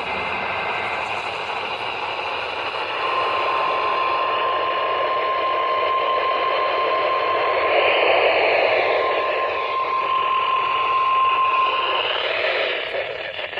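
Weather radio broadcast under steady static hiss, with a single steady tone near 1 kHz that starts about three seconds in and holds for about nine seconds. This is the NOAA Weather Radio warning alert tone that marks a new warning being issued.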